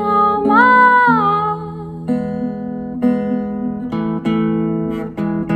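A woman's sung note, bending and then fading about a second and a half in, over acoustic guitar. The guitar then plays chords alone, with a fresh strum roughly every second.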